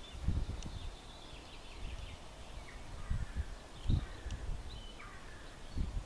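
Birds chirping in short, scattered high notes, over irregular low rumbles of wind gusting on the microphone, loudest about a second in, near four seconds and near the end.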